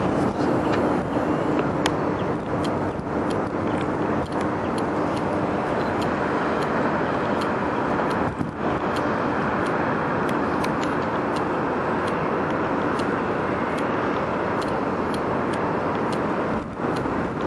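A train passing close by, with a steady rumble of wheels on rails and regular clicks. A low hum runs under it for the first few seconds.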